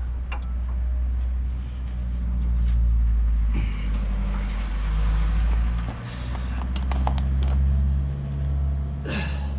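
Low, steady rumble of a running vehicle engine, with a few light metallic clicks about seven seconds in as a brake pad is worked into the caliper bracket.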